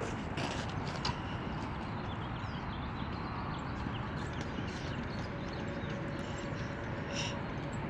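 Steady outdoor background noise with a few sharp clicks and knocks, the loudest about a second in, from a metal outdoor chest-press fitness machine being pushed.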